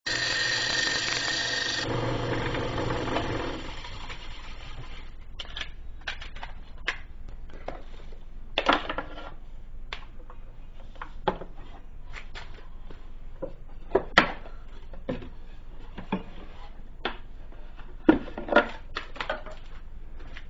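A whirring mechanical sound for about the first two seconds that dies away, then scattered clanks, knocks and rubbing as metal tools and the grinder's electric motor are handled on a wooden workbench.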